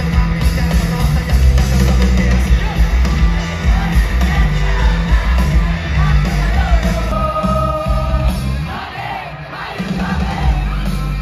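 Live rock band playing loud through a festival PA, heard from within the crowd, with heavy bass, a singer's voice and crowd yelling. A held note rings out about seven seconds in, and the music eases briefly before building again.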